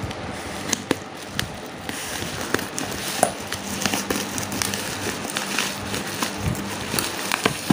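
Scissors cutting open a parcel wrapped in black plastic and packing tape, the plastic crinkling with irregular snips and crackles.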